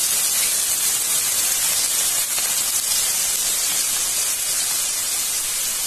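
Chopped onions sizzling steadily in hot oil in a kadai.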